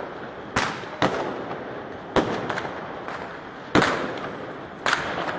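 Fireworks exploding: five sharp bangs at uneven intervals, the loudest a little before four seconds in, each trailing off, over a steady crackle.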